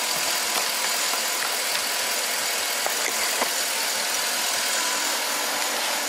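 2012 Chevy Tahoe V8 idling steadily with a very slight, intermittent misfire on cylinder 5. The misfire stays on cylinder 5 after the plug wires were swapped, pointing to a faulty spark plug.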